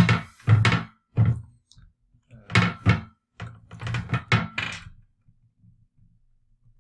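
Irregular knocks and thunks of pliers and a thick two-conductor landscape-lighting cable being handled and worked against a tabletop, about a dozen hits in the first five seconds. The knocking stops about five seconds in.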